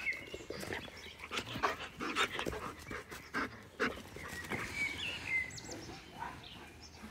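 Dogs panting and scuffling at close range, with a few brief high squeaks about the middle.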